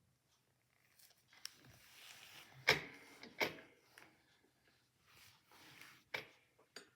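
Handling noise: rustling with a handful of sharp clicks and knocks, the loudest a little under three seconds in.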